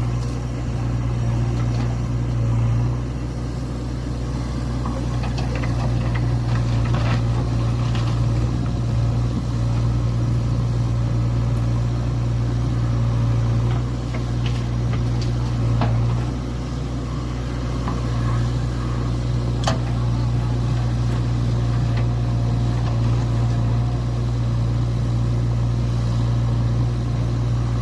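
Heavy diesel engine running steadily, its level dipping briefly a few times, with a few faint knocks.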